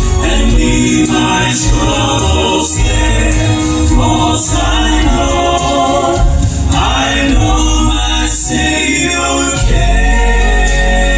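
Live southern gospel music: a male vocal quartet singing in harmony over a band accompaniment with a strong bass line.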